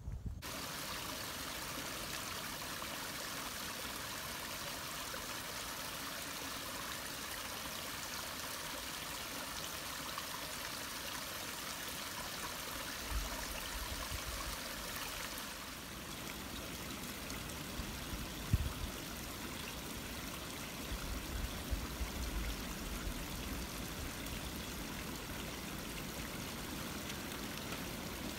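Small woodland stream trickling over roots and rocks, a steady even rush of water. A few dull low thumps come in about halfway through and again later.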